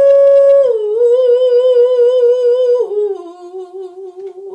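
A woman singing unaccompanied, holding one long wordless note that steps down in pitch twice. The last, lowest step wavers with vibrato and fades out near the end.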